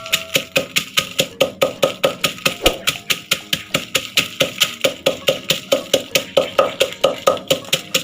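Pestle pounding chilies, garlic and sugar in a mortar for som tam: rapid, steady knocks about five a second, each with a short ringing note.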